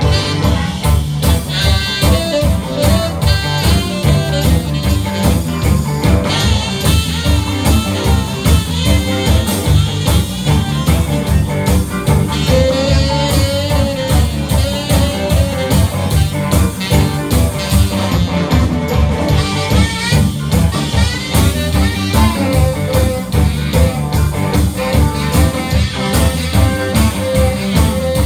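Live rock 'n' roll band playing with a steady beat: electric guitars, bass, drum kit, keyboard and saxophones.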